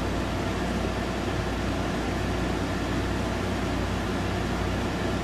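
Steady room ventilation noise: an even hiss with a low, constant hum underneath, unchanging throughout.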